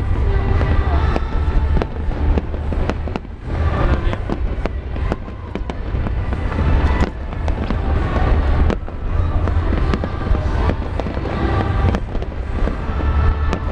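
Large fireworks display: rapid bangs and crackling shell bursts over a continuous low booming rumble.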